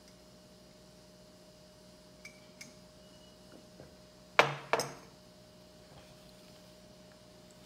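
Two sharp clinks of hard objects knocking together, a third of a second apart, with a few faint ticks a second or two before them, over a faint steady hum.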